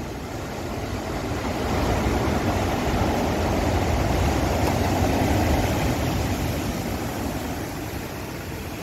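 Large storm waves breaking on the beach and washing up toward the wall: a rushing surf noise that builds over the first two seconds, is loudest in the middle and slowly fades.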